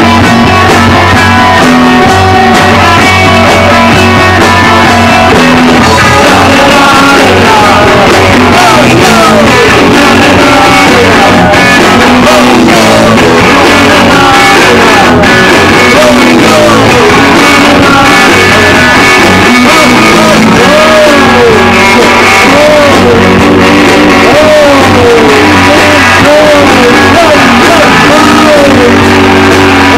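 Live rock band playing loud: two electric guitars, drums and a singer at the microphone, with swooping bent notes through the second half.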